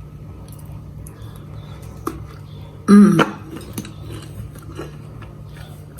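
Light clinks and taps of dishes and cutlery, with a sharp click about two seconds in and a brief vocal "mm" about three seconds in, over a steady low hum.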